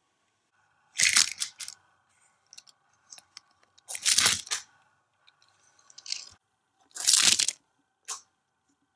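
Hot Wheels Auto Dealership playset being worked by hand: plastic parts and a die-cast toy car clattering in five short bursts as the yellow platform tips and the car clacks off it down the plastic ramp.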